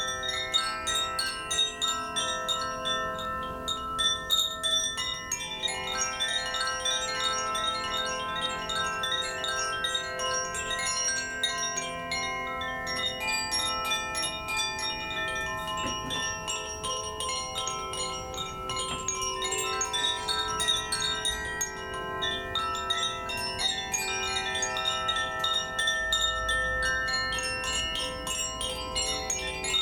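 Koshi chimes being played: a steady wash of many overlapping sustained ringing notes, renewed by frequent light strikes.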